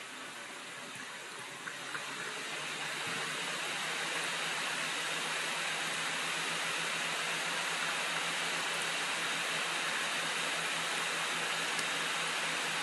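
Steady rushing noise with a faint low hum underneath, growing louder over the first few seconds and then holding level.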